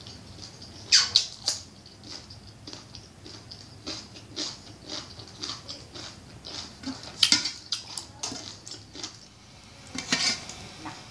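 Close-up crunching and chewing of a raw cucumber: a few loud crisp bites, about one and one and a half seconds in and again past the middle, with many smaller crunches of chewing between them.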